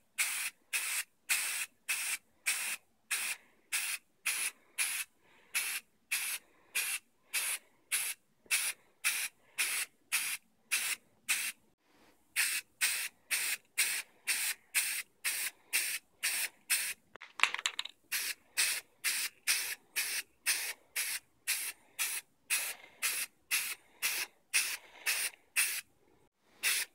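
Aerosol spray-paint can hissing in short, rapid bursts, about two a second, with a brief pause about twelve seconds in.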